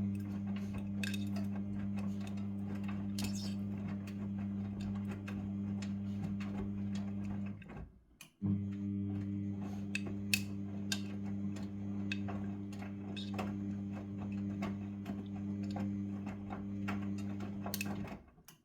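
Midea front-loading washing machine running a wash: a steady low hum with irregular clicks and clinks from hard items in the load knocking against the tumbling drum. The sound cuts out briefly about eight seconds in.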